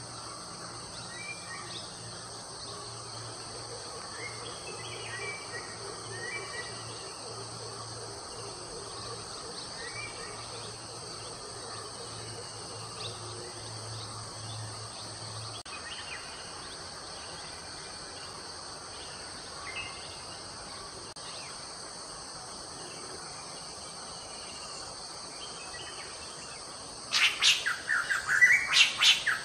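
Forest ambience: a steady high drone of insects with scattered bird chirps. Near the end a bird calls loudly and repeatedly in a rapid run of chirps.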